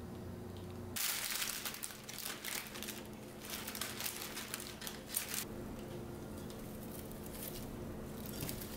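Clear cellophane florist wrap crinkling and rustling as a bouquet is handled, starting about a second in and dying down a little past the middle.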